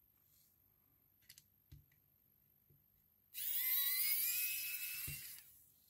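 Electric precision screwdriver with a T5 Torx bit whirring for about two seconds, backing out a screw from a watch's case back; its whine rises in pitch as it spins up, then holds. A few faint taps of the bit on the case come before it.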